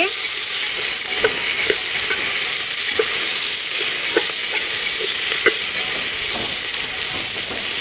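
Chopped capsicum and cauliflower frying in hot ghee in a pressure cooker: a steady sizzle, with the stirring spoon now and then scraping or knocking against the pot.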